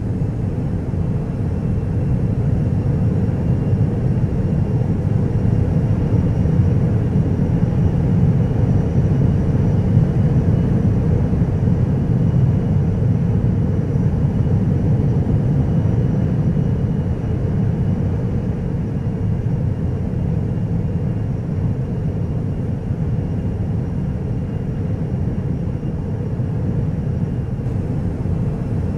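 Jet airliner engine noise heard from inside the cabin: a steady, even rumble with a faint high whine above it.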